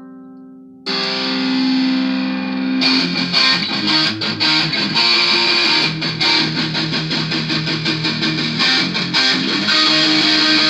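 Intro music: a sustained guitar chord fading out, then about a second in a loud distorted electric guitar comes in, joined about three seconds in by percussion with a steady beat.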